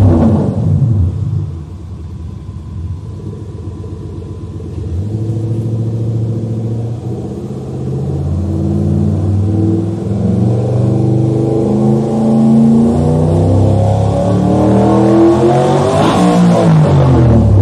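Range Rover 3.0 diesel fitted with an ENGINEVOX electronic active exhaust sound system set to imitate a Range Rover Sport V8. Its revs fall back to idle in the first second or two. They then climb in steps over several seconds to a high peak near the end and start to drop again.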